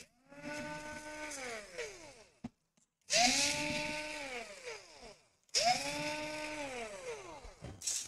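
A small electric motor runs three times, about two seconds each. Each time it spins up quickly, holds a steady whine with a hiss over it, then drops in pitch as it winds down.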